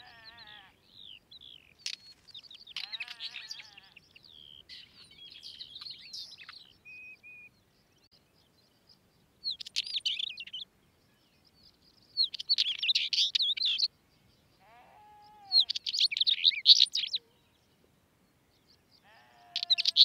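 Northern wheatear singing: short, fast, scratchy chattering phrases repeated with pauses of a second or two between them, mixed with a few lower, wavering whistled notes.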